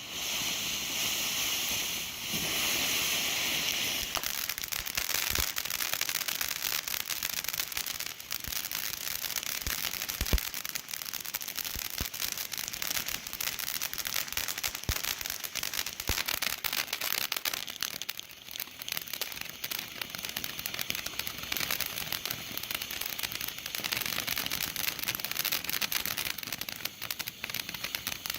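Pyro Demon Everlasting Mayhem fan fountain firework spraying sparks with a dense, continuous crackle. It surges into a loud hissing rush for the first few seconds, with one sharper pop about ten seconds in.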